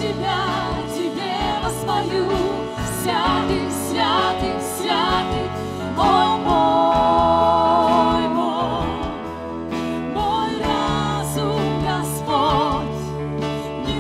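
Live Christian worship song in Russian: a woman's voice leads with vibrato and other singers join, backed by keyboards and guitars with a steady beat. About six seconds in the voices hold one long note, the loudest part.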